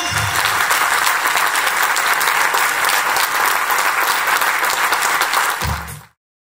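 Theatre audience applauding steadily, dense clapping that fades out quickly about six seconds in.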